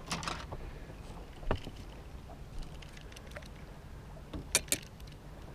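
A few sharp knocks and clicks from tackle and the boat's deck as a crappie is brought aboard: a short rustle at the start, one knock about a second and a half in, and two quick knocks near the end. Under them runs a low, steady hum.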